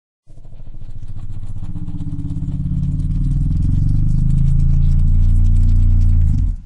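Dinosaur sound effect: a deep, rapidly pulsing growl made for the ceratopsian Ojoceratops fowleri. It swells in loudness for about six seconds, then cuts off abruptly.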